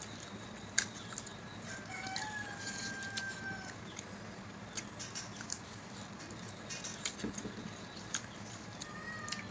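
Eating sounds: fingers working rice on ceramic plates, with scattered sharp clicks. A rooster crows once in the background, a long call held for about a second and a half from about two seconds in.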